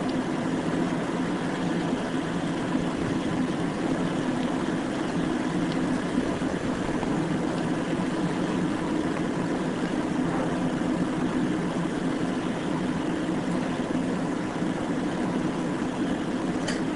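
Steady machine hum, a low even drone that does not change.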